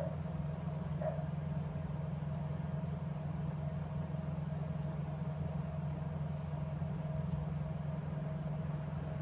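Steady low mechanical hum with a faint constant higher tone running above it.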